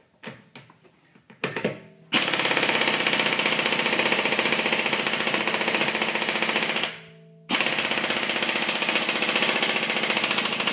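Air-powered impact wrench, rated at 435 pounds of torque, hammering in two long runs with a short pause between, after a few light clicks. It is straining against a badly overtightened lug nut on an aluminum wheel without yet breaking it loose.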